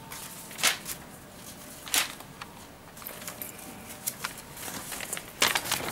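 Short rustles and clicks at irregular intervals over a faint background hiss, the loudest about half a second, two seconds and five and a half seconds in.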